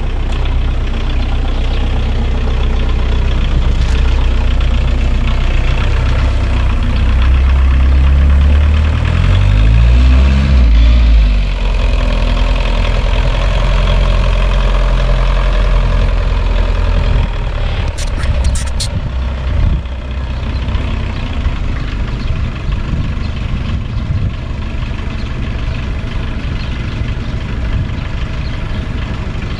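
Diesel engine running steadily and loud, its pitch rising and falling about eight to eleven seconds in. A few sharp clicks come about eighteen seconds in.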